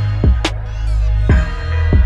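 Background music with a deep bass line and a steady drum beat.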